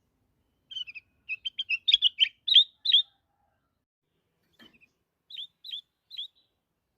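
A kutilang emas bulbul singing: a quick run of short, bright chirping notes, getting louder toward the end, then after a pause a softer phrase of three down-slurred whistled notes.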